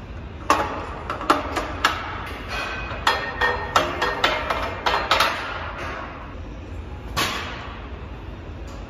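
Steel clanks and rattles of a Hammer Strength power rack's safety arm being lifted out and reset, a quick string of ringing metal knocks, then one more clank a couple of seconds later.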